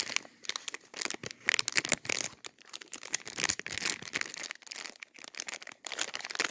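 Plastic candy packaging crinkling and crackling in irregular bursts as it is opened and handled.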